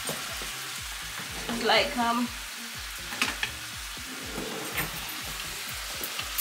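Sliced onion, carrot and pepper sizzling steadily in vinegar in a frying pan, with a few clicks of a wooden spoon against the pan as they are stirred. A short pitched sound comes about two seconds in.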